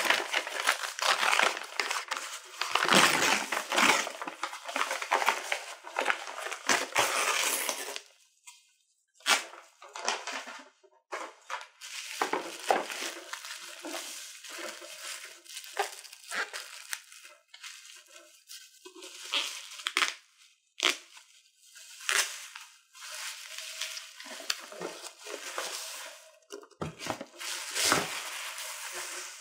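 Parcel packaging being torn and handled: about eight seconds of dense crackling and rustling as the postal bag is worked open and the bubble-wrapped package pulled out, then intermittent crinkling of bubble wrap and light knocks as cardboard boxes are set down on the table near the end.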